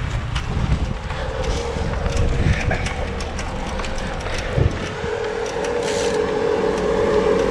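Wind rushing over the microphone of a rider on the move, with the steady hum of a motor vehicle's engine growing louder toward the end.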